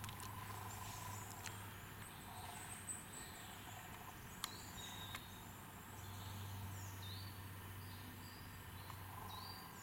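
Faint forest ambience with a few short high bird chirps, most of them in the second half, a low steady hum underneath, and a few light clicks.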